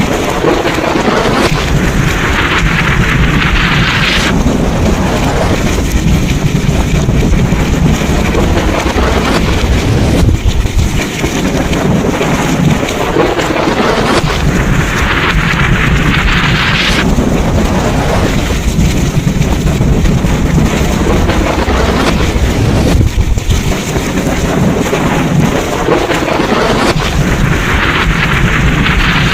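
Thunderstorm: heavy rain with a continuous deep rumble of thunder and wind, the rain's hiss swelling three times, about every 13 seconds.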